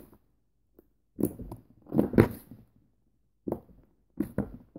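Homemade slime being squished and pressed with the fingers on a tabletop: several short wet squelches and pops, the loudest about two seconds in.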